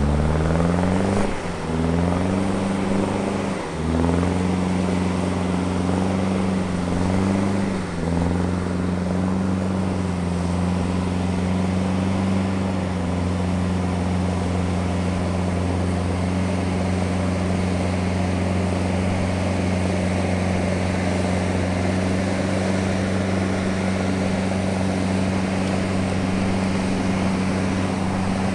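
Avtoros Shaman 8x8 amphibious vehicle's engine pulling through shallow sea water: its pitch climbs and drops back several times in the first eight seconds, then holds a steady drone. A wash of water churned up by the wheels runs underneath.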